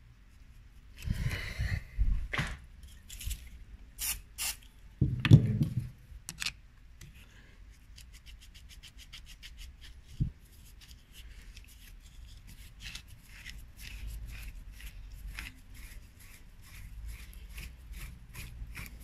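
Flat-blade screwdriver scraping and grinding in the head of a rusted screw set in the wooden stock of a Mauser K98 rifle. Loud scrapes and knocks come in the first few seconds, then a long run of small clicks and creaks as the stuck screw is worked loose.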